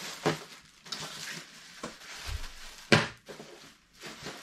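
Plastic packaging rustling as it is handled, with a few sharp knocks against the table, the loudest about three seconds in.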